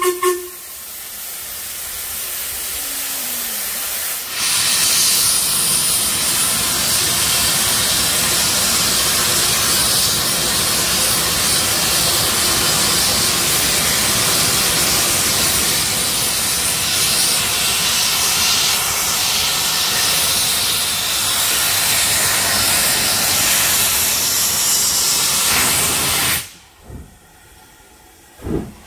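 Ivatt LMS Class 2MT 2-6-0 steam locomotive starting away with its cylinder drain cocks open, venting steam in a hiss that builds over the first few seconds and then runs loud and steady. The hiss cuts off suddenly about 26 seconds in, and two exhaust chuffs follow near the end. The last of the engine's whistle is heard at the very start.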